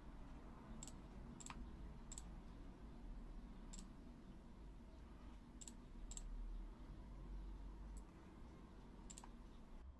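Computer mouse button clicking about eight times at uneven intervals, faint, over a low steady hum.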